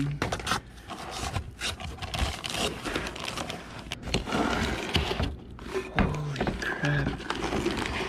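Cardboard box, packing paper and plastic wrap rustling, crinkling and scraping as a wrapped exhaust tip is pulled out by hand, with many short clicks and scrapes.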